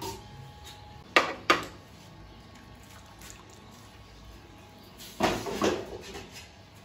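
Clatter of dishes and metal utensils being handled: two sharp knocks about a second in, then a louder rattling clatter around five seconds.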